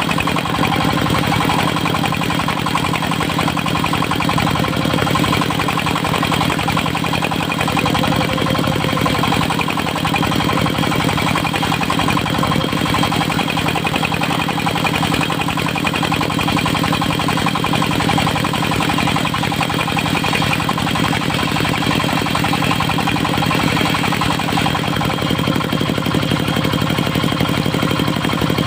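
Engine of a portable circular-saw sawmill running steadily, with an even firing pulse and a faint high steady whine.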